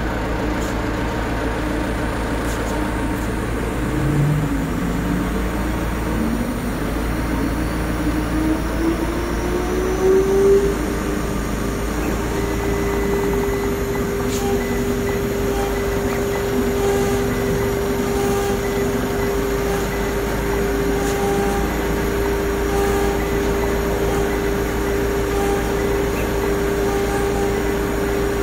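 The 2.2 kW spindle of a TIR4040 mini CNC router spins up: a whine rises in pitch over about six seconds and then holds steady at high speed. Short tones come and go as the stepper motors jog the axes.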